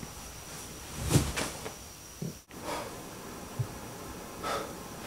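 Bed quilt rustling, loudest about a second in, followed by a few fainter rustles and a light knock, over a faint steady high-pitched whine that stops about halfway through.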